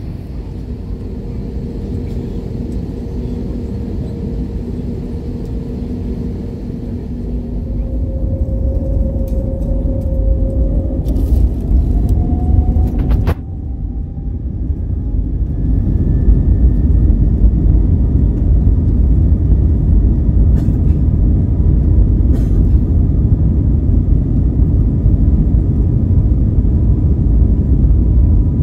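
Airbus A320neo cabin sound: engine whine rising in pitch as the engines spool up, then a loud steady low rumble of the takeoff roll. A few faint clicks.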